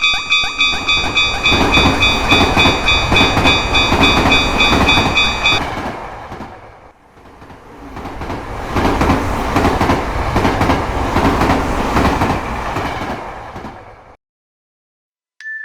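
Japanese level-crossing bell ringing in a fast, even clang-clang while a train passes with a rumble and wheel clatter. The bell stops about five and a half seconds in, and a second train rumbles past before the sound cuts off near the end.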